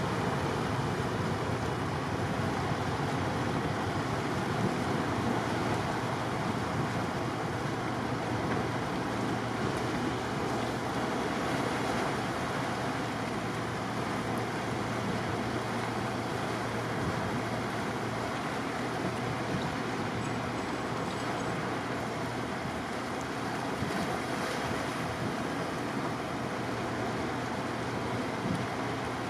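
Steady rushing of wind and sea, with a faint steady low hum that comes in about a third of the way through.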